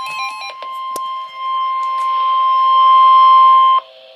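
NOAA Weather Radio warning alarm tone: a steady single tone near 1 kHz that grows louder and cuts off sharply near the end, leaving faint radio hiss. A warbling stepped tone pattern over it stops within the first half second. The tone signals an emergency weather alert about to be read.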